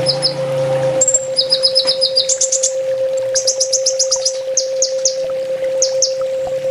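Kolibri ninja sunbird singing: rapid runs of short, high, thin chirps and trills in quick groups, over a steady low hum.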